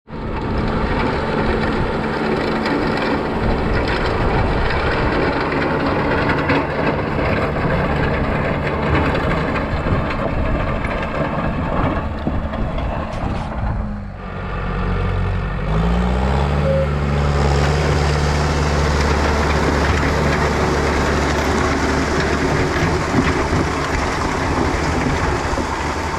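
Tractor engine working steadily in the field. About fourteen seconds in it dips briefly, then its pitch rises and it runs on steadily.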